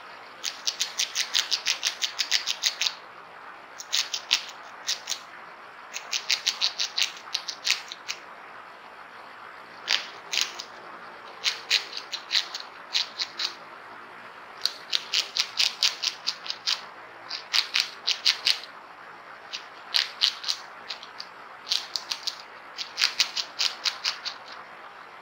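Agouti gnawing hard seeds: bursts of rapid, sharp clicks, each burst a second or two long, with short pauses between.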